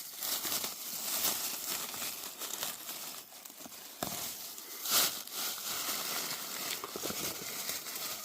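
Dry leaf litter crunching and rustling in a steady run of small crackles, with louder crackles about four and five seconds in.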